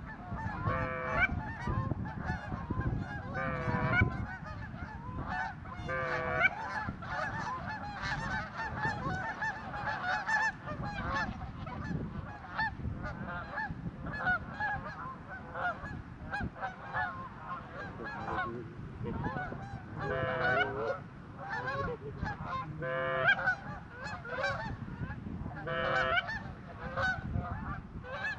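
A flock of geese honking continuously, many calls overlapping, with louder single honks standing out every few seconds.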